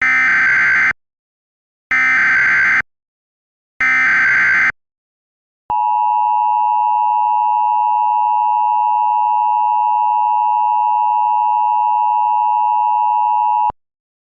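Emergency Alert System alert opening: three short bursts of screechy digital SAME header data, about two seconds apart. After a brief gap comes the steady two-tone EAS attention signal, held for about eight seconds and cutting off sharply. It signals that an emergency voice message follows.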